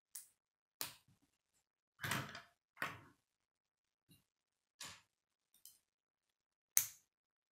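K'nex plastic rods and connectors clicking together as they are pressed into place by hand: a string of separate sharp snaps and knocks, with a short rattling cluster about two seconds in and the loudest snap near the end.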